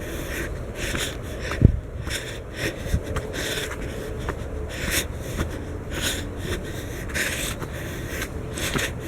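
A person walking briskly and breathing hard close to the microphone, in a steady rhythm of about two breaths or steps a second. A low rumble from the hand-held recorder runs underneath, with a single thump about one and a half seconds in.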